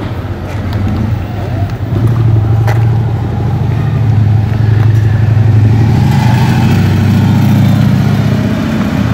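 Motorcycle trike towing a small trailer riding past, its engine drone building about two seconds in and staying loud as it goes by.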